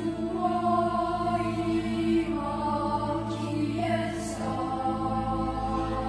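Slow ambient background music with long held notes over a steady low drone.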